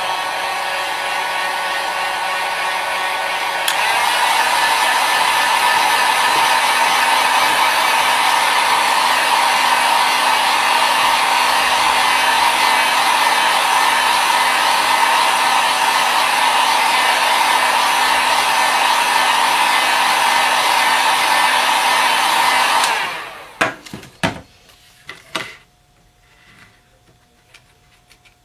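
Hot-air blower running steadily, heating a phone screen to loosen its adhesive; it gets louder about four seconds in and shuts off about five seconds before the end. A few sharp clicks and knocks follow just after it stops.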